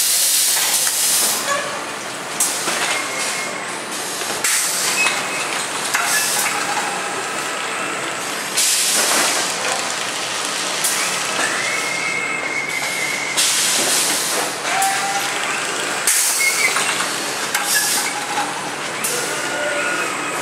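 Pneumatic crate-stacking machine at work: bursts of compressed-air hiss every few seconds over a steady machine hum, with a few short knocks and high squealing tones as plastic crates move along the conveyor.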